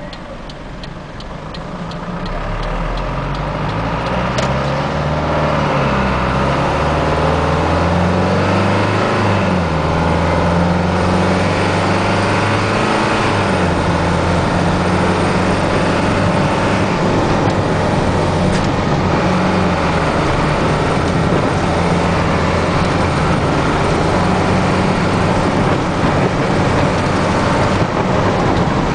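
Toyota Dyna truck's engine pulling away and accelerating, its note climbing and dropping back several times as the 6-speed automatic shifts up, then running at a steady cruise.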